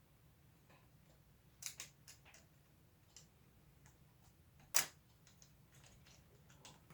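Plastic Lego Technic pieces clicking and tapping as they are handled and fitted together: scattered light clicks, with one sharper click about five seconds in.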